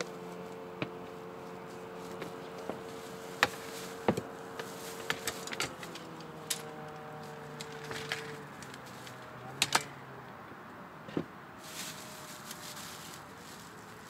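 Gear being handled and loaded into an inflatable boat: scattered knocks and clinks, with a faint steady hum whose pitch drifts slowly downward in the middle.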